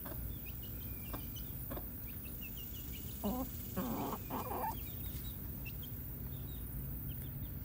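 Chickens clucking, with a short call a little past the middle and a longer run of clucks just after. Faint high chirps are scattered throughout over a steady low rumble.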